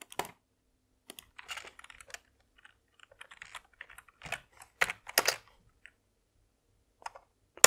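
Typing on a computer keyboard: irregular keystroke clicks, with one sharper, louder click near the end.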